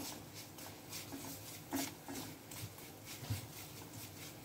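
A silicone spatula stirring and scraping across a kadai, making irregular soft scrapes and taps about once a second, as semolina and chopped nuts are dry-roasted in a little ghee.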